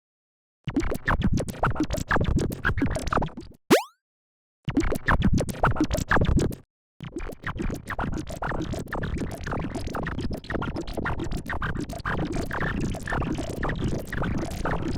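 Electronic music with rapid, scratch-like stuttering that stops dead twice. A quick rising zip comes just under four seconds in.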